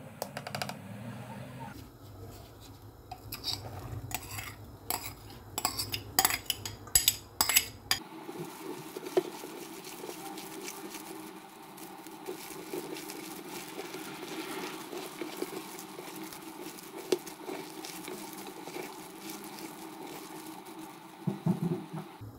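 Food being mixed in a stainless steel bowl. For the first eight seconds there are sharp metallic clinks against the bowl, then a steadier soft sound of a hand working raw chicken pieces, flour and sliced onion together, with occasional light taps on the metal.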